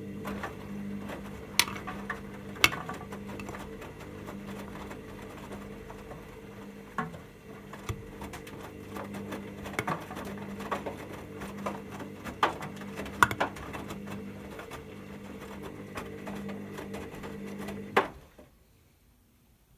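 Hoover OneTouch washing machine tumbling its drum during the final rinse: a steady motor hum with scattered clicks and knocks from the load turning in the drum. The motor stops abruptly near the end.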